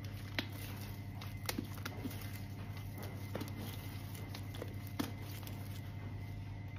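Soft slime being squeezed, pulled and stretched by hand: sticky squelches with scattered sharp pops and snaps, three of them louder than the rest, over a steady low hum.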